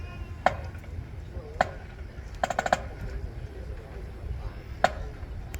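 Sharp, ringing percussive strikes, some single and one quick flurry of four or five hits, over a low outdoor rumble.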